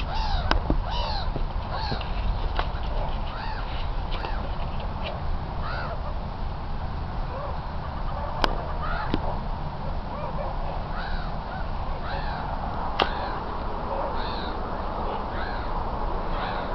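Meerkat pup giving short, high chirping calls over and over, roughly one a second with a sparser stretch in the middle, over a low rumble. Two sharp clicks cut through partway.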